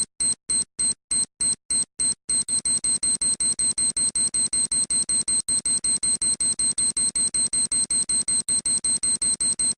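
Electronic bomb-timer beeping sound effect: short, high-pitched beeps of one steady pitch, about four a second, quickening to about six a second a couple of seconds in, as a countdown.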